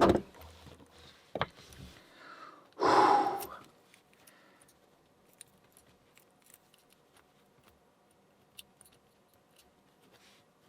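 Small metallic clicks and ticks of a pin-tumbler lock's parts being handled as the lock is taken apart, with a loud breath about three seconds in.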